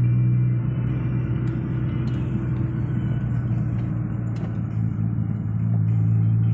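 Inside the cabin of a moving car: a steady low engine drone with road and tyre rumble.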